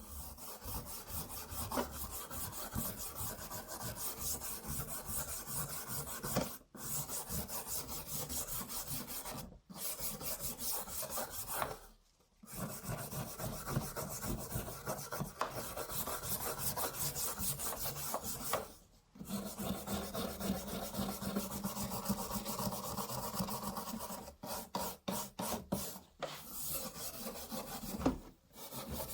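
Rasping, scraping abrasion on a sword restoration workpiece, running in long stretches broken by brief pauses, with quick stop-and-start strokes near the end.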